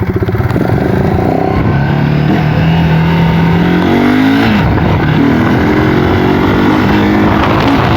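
Honda CB Twister 250's single-cylinder four-stroke engine, run with its air filter completely removed, accelerating on a ride. The engine pitch holds, climbs around the middle, drops briefly as if at a gear change, then climbs again.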